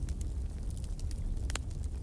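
Wood fire in a fireplace crackling, with irregular sharp pops over a low steady rumble of the flames; the loudest pop comes about one and a half seconds in.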